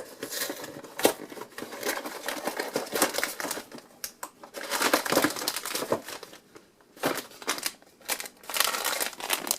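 A cookie box being opened by hand: cardboard tearing and packaging crinkling in irregular spells, with a short lull about two-thirds of the way through.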